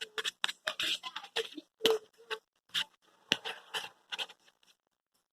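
Sticky homemade slime being mixed and squished, a quick irregular run of wet clicks and smacks that stops about three-quarters of the way through.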